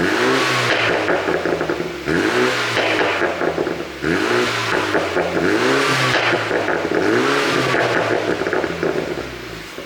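BMW 428i's turbocharged four-cylinder engine blipped repeatedly through its exhaust, each rev rising and falling away into a run of pops and crackles on the overrun, the sound of its ECU pop tune. The revving tails off near the end.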